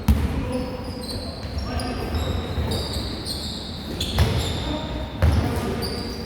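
Basketball game play on a hard court: the ball bounces with heavy thuds right at the start, about four seconds in and again a second later, while sneakers give many short high squeaks on the floor throughout.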